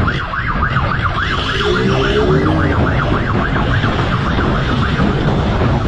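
Siren on a fast yelp, wailing up and down about four times a second and fading out about three and a half seconds in, over the steady rumble of a motorcycle's engine and wind.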